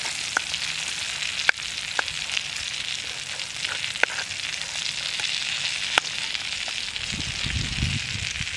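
Sausages and eggs sizzling steadily in an aluminium frying pan over a campfire, with a metal spoon clicking sharply against the pan about five times as it is pushed through the food.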